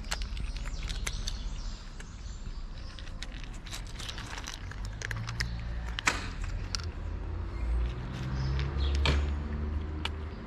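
Cats crunching dry kibble from bowls: quick, irregular crunches and clicks, with two louder crunches about six and nine seconds in. A low rumble runs underneath, with a faint hum growing in the second half.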